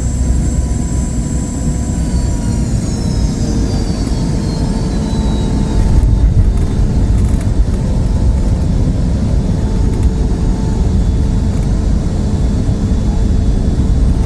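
Boeing 717's rear-mounted Rolls-Royce BR715 turbofans heard from inside the cabin after landing: several high engine whines fall in pitch over a few seconds as the engines spool down, over a steady deep rumble that grows a little louder about halfway through.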